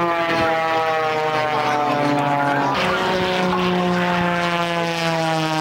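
Propeller-driven Extra 300-series aerobatic plane flying a low pass, its piston engine and propeller droning steadily and sliding slowly down in pitch. A second drone comes in about halfway through.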